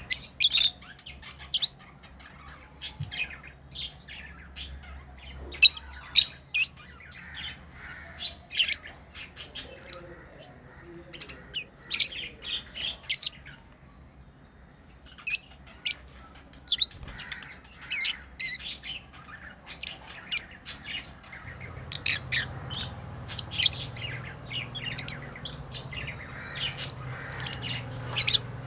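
Pet lovebirds chirping and squawking: many short, sharp, high-pitched calls in quick runs, with a brief lull about halfway through.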